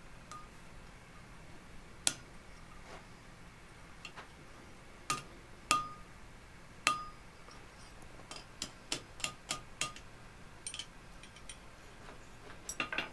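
Hammer striking a steel drift driven through the hot slot of a sword guard on the anvil, sizing the hole for the tang. A few separate sharp strikes with a short ring come first, then a quicker run of lighter blows at about three a second, and a few more near the end.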